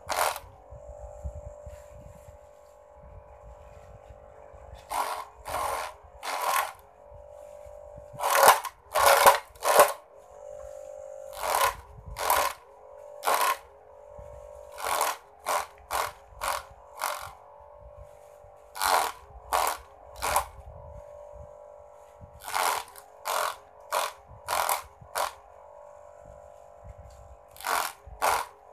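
Mini grass chopper driven by a salvaged toy-car electric motor, running with a steady whine while grass is fed in; short loud bursts of chopping clatter come in irregular clusters as the blades cut the stalks.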